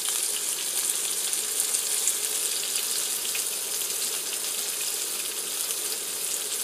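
Hamburger patties frying in a pan on an induction cooktop: a steady sizzling hiss with faint crackles.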